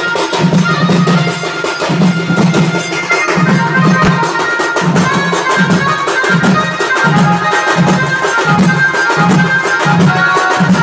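Singh baja street band playing: massed drums beaten with sticks keep a low, driving beat that quickens to about two beats a second from the middle on, under a high, reedy wind melody.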